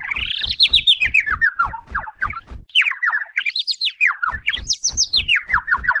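Bird chirping: a fast run of short chirps in phrases that climb and then fall in pitch, with a short break about halfway.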